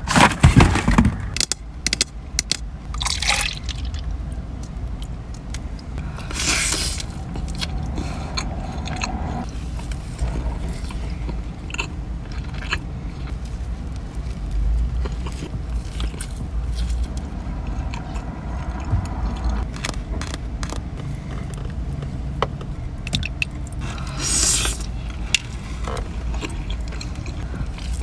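Close-up eating sounds: donuts being bitten into and chewed, with scattered short clicks and scrapes from handling the food, over a steady low rumble.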